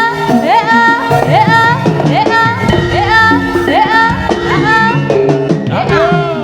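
Live East Javanese jaranan sentherewe accompaniment music, played loud. A pitched lead melody makes repeated rising swoops about twice a second over steady held lower tones.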